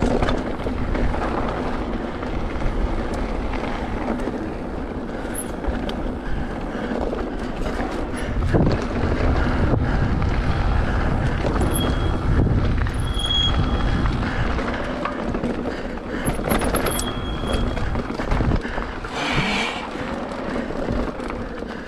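Mountain bike ridden along a dirt trail: steady wind buffeting the bike-mounted camera's microphone over tyre noise and knocks from the rough ground, with a few short high squeaks around the middle.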